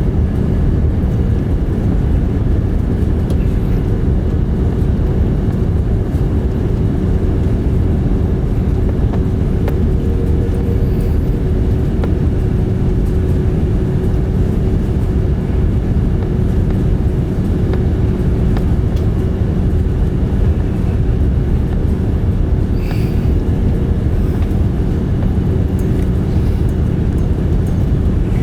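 Steady rumble of airflow and engine drone heard inside the cabin of an Airbus A330 airliner in flight, with a constant low hum under it.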